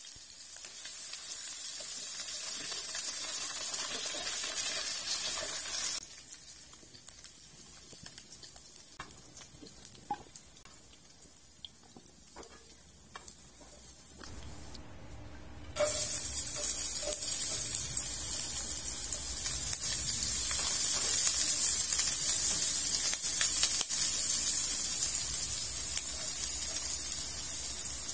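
Oil sizzling steadily under diced potato and carrot frying in a nonstick wok. It dies down midway to a quieter stretch with scattered light knocks of a spatula against the pan. About two-thirds through, a louder sizzle starts suddenly as chopped shallot and garlic fry in the oil.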